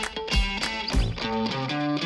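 Background music: strummed guitar over a steady beat with kick drum about twice a second, the drums dropping out near the end.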